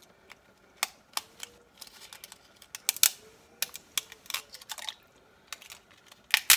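Dry lasagna noodles being snapped by hand, a dozen or so sharp, dry cracks at uneven intervals.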